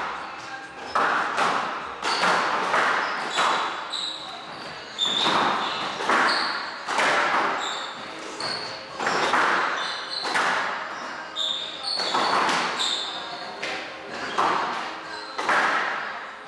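Squash rally: the ball struck by rackets and hitting the walls about once a second, each hit echoing around the court, with short squeaks of court shoes on the wooden floor.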